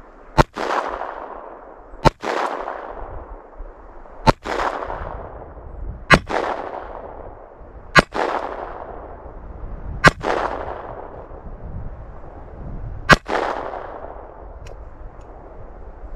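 Seven slow, aimed shots from a Beretta 21A pocket pistol in .22 Long Rifle, roughly two seconds apart with a longer pause before the last, each trailing off in an echo.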